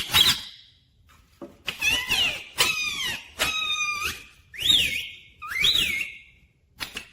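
Indian ringneck parakeet calling: a short sharp call, then a run of squawks and whistled notes, two of them swooping up and back down near the end.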